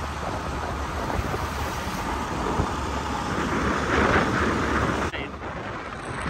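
Wind rushing over the microphone with the motorcycle's engine and road noise while riding on the highway; the wind hiss eases suddenly about five seconds in.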